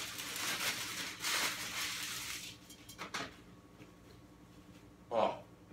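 Paper fast-food wrappers rustling and crinkling as they are opened, for about two and a half seconds, followed by a single knock about three seconds in and a brief vocal hum near the end.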